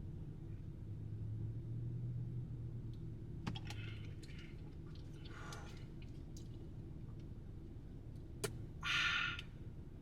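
A drink bottle being handled after being shaken up: a couple of sharp clicks and two short hissing noises over a low steady hum.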